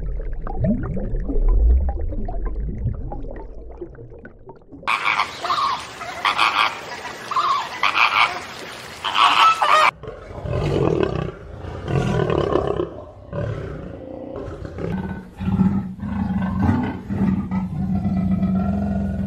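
Animal sound clips edited one after another, changing abruptly about five and ten seconds in. The last half is a big cat giving a run of repeated low growls.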